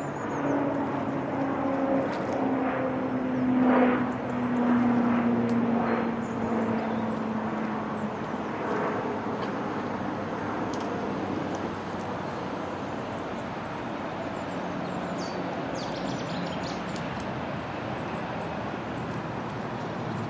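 A passing engine's drone, slowly falling in pitch before fading out about eight seconds in, over a steady background of traffic noise.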